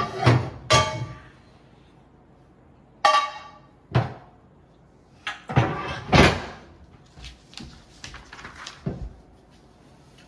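Pots and pans clanking and cupboard doors knocking as cookware is taken out: a series of sharp knocks and clatters, one about three seconds in ringing briefly like struck metal.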